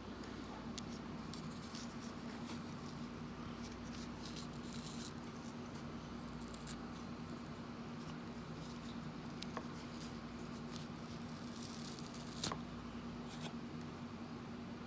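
Fingers working at the worn ear cushion and plastic earcup of Bose QuietComfort 35 headphones: soft scuffs, rustles and light taps, with one sharper click near the end. A steady low hum sits underneath.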